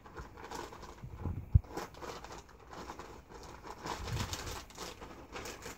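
Clear plastic bag of nails crinkling as it is handled, with scattered crackles throughout. A single sharp, dull thump about a second and a half in.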